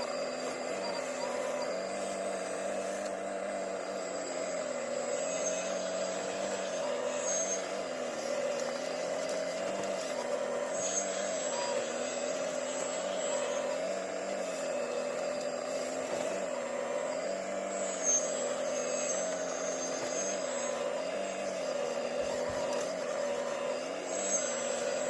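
Diesel engine of a heavy earthmoving machine running continuously, its pitch rising and falling every couple of seconds as the load on it changes.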